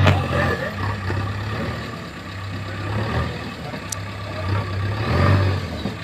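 Diesel engine of a JCB earthmoving machine running, its low drone swelling and easing as the machine works.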